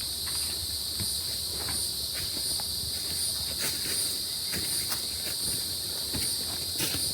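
A chorus of insects keeps up a steady high drone, with a pulsing chirp about every three-quarters of a second. Faint footsteps and rustling in the brush are heard underneath.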